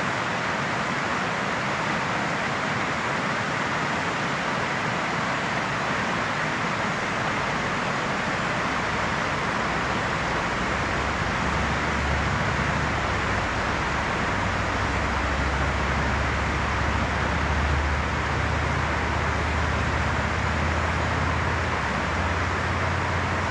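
Steady rush of a small stream's rapid, water pouring over rocks, with a low rumble joining about halfway through.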